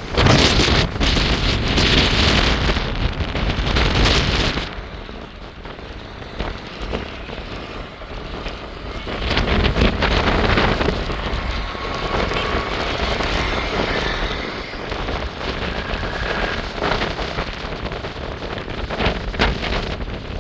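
Jet airliner engines running loud, with wind buffeting the microphone. The noise is heaviest in the first four seconds, drops away, then swells again about ten seconds in and holds steady.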